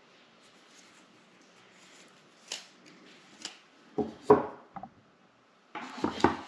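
Camera packaging being handled during unboxing: faint rustling, then a few sharp clicks, two heavier knocks about four seconds in, and a burst of rustling and clicking near the end.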